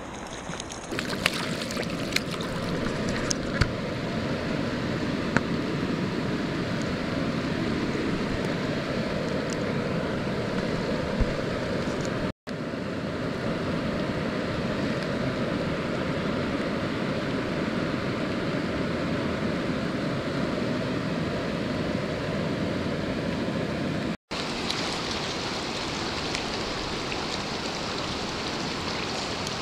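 Water rushing steadily in a spring-fed trout stream, with a few sharp clicks in the first few seconds. The sound drops out twice, very briefly.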